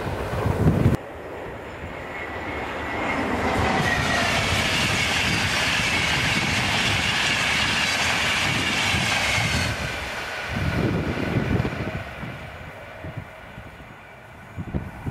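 Express passenger train passing close by at speed: a dense rush of wheels on rail with a steady high ringing from the wheels, building over a couple of seconds, holding, then dying away suddenly after about ten seconds. Wind buffets the microphone near the end.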